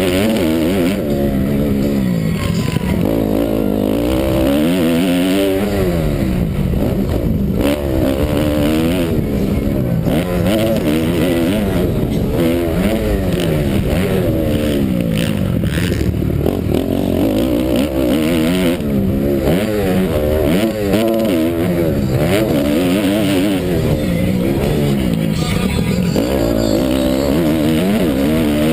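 Motocross bike engine heard from a camera mounted on the bike, revving up and falling back over and over as the rider opens and closes the throttle and shifts through the gears around the dirt track.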